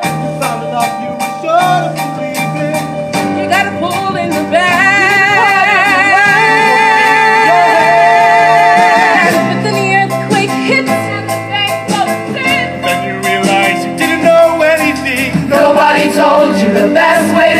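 Teenage musical theatre singers performing a show tune over instrumental accompaniment with a steady beat. In the middle the voices hold long, wavering notes, climbing to one sustained high note before the melody moves on.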